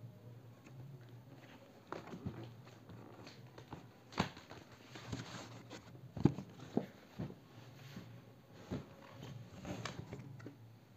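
Cardboard box of a computer monitor being opened by hand: light rustling and scraping of the cardboard flaps, with several short knocks and taps as the lid is pulled open.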